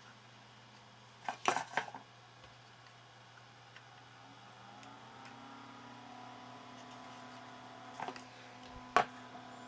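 A few sharp clicks from handling a powered drive-bay front panel, then a small computer cooling fan starting up: its motor hum rises in pitch and settles into a steady whine. Two more clicks follow near the end, the second the loudest.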